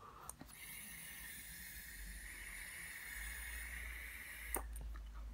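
A long drag on an Origen genesis vape atomizer wicked with sheathed cable: a steady, faint airy hiss of air drawn through the atomizer, stopping with a click about four and a half seconds in.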